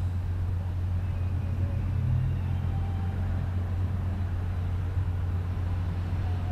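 Steady low hum with no speech.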